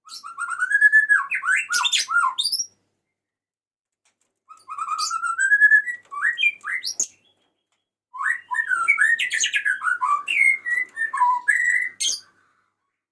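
Male white-rumped shama (murai batu) singing in three phrases of whistled notes that slide up and down, mixed with sharp clicks and harsher chattering notes, with silent gaps between phrases. It is the male's call to a female.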